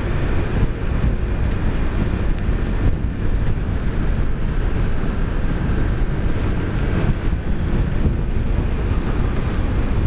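Steady wind rush over a helmet-mounted microphone while riding a motor scooter at speed, with the scooter's engine running and tyre noise from the damp road underneath.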